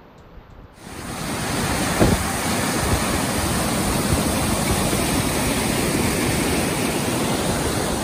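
Rain-swollen waterfall pouring through a granite channel: a loud, steady rush of water that starts abruptly about a second in. A brief thump comes about two seconds in.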